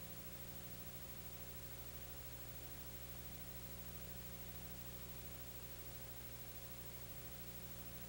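Steady electrical hum and hiss with nothing else: the empty soundtrack of a silent film transfer.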